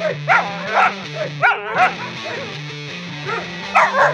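West Siberian Laika barking in a run of sharp barks about half a second apart, with a gap of about two seconds before two more near the end, over background music.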